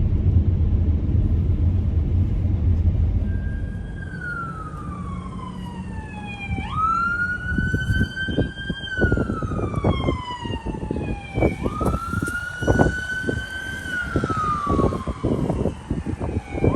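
Electronic siren wailing over a low rumble. Starting about three seconds in, each cycle jumps sharply up in pitch, holds, then slides slowly down, repeating three or four times. Irregular low thumps come in under it in the second half.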